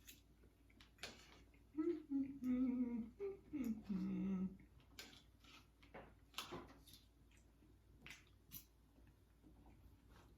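A woman humming briefly with her mouth closed, a few wavering notes, between small clicks and smacks of eating.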